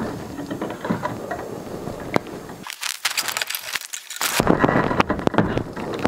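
Wire strippers biting into and twisting the insulation off electrical wires, with a crackling rustle and scattered sharp clicks as the wires are handled.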